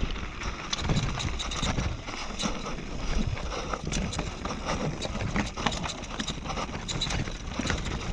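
Mountain bike rolling fast down a rocky trail: tyres crunching over rocks and loose stone, with frequent sharp clicks and knocks from the bike rattling over the rough ground, over a low wind rumble on the microphone.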